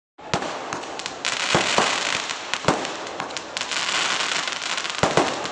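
Fireworks going off: a dense crackling hiss of burning sparks, broken by sharp bangs every second or so, the loudest pair about five seconds in.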